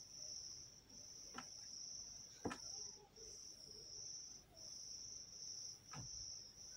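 A cricket chirping on and on, a high trill broken into runs of about half a second with short gaps. Three faint knocks come through it, the sharpest about two and a half seconds in.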